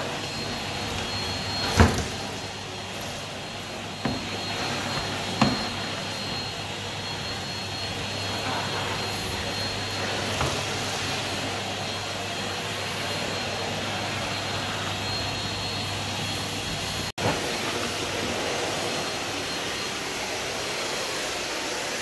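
Vacuum cleaner running steadily with a high whine, its floor head working over a rug. Two sharp knocks in the first few seconds, and the sound cuts out for an instant after about seventeen seconds.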